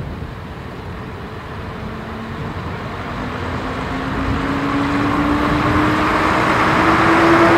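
Class 117 diesel multiple unit running close past along the platform, its underfloor diesel engines growing steadily louder as it nears, with an engine note that rises slowly in pitch.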